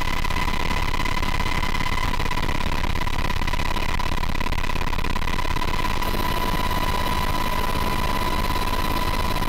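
Aircraft engine noise heard from inside the cabin: a loud, steady drone with a constant high whine that does not change.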